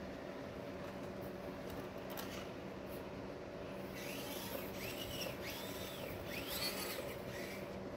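Axial SCX24 micro rock crawler's small electric motor and gear train whirring steadily as it drives. In the second half come four short high whines, each rising and falling, as the throttle is worked.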